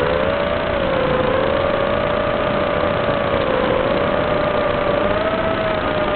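Small FPV racing quadcopter's brushless motors and propellers whining in flight, the pitch wavering gently with throttle, over a steady hiss.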